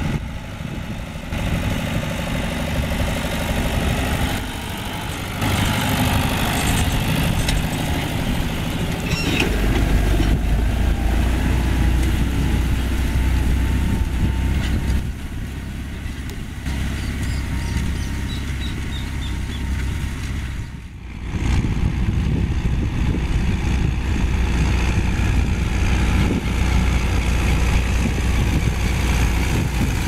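John Deere 2850 tractor's six-cylinder diesel engine running steadily while pulling an offset disc harrow through a field. Its pitch and loudness change abruptly several times, with a brief drop about two-thirds of the way through.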